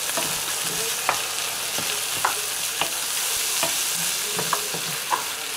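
A corned beef, onion and beetroot mixture sizzling in a frying pan, just deglazed with beetroot juice, while a wooden spoon stirs it. The spoon scrapes and taps against the pan now and then over the steady sizzle.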